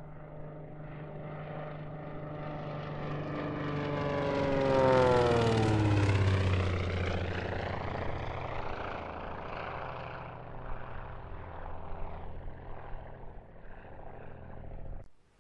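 Propeller aircraft flying past. Its engine note grows louder to a peak about five seconds in, the pitch falls as it goes by, and it then fades away before cutting off just before the end.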